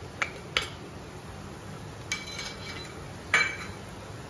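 Steel spoon clinking and tapping against a small steel cup as masala powder is knocked out into the pan: four short metallic clinks that ring briefly, the loudest a little over three seconds in.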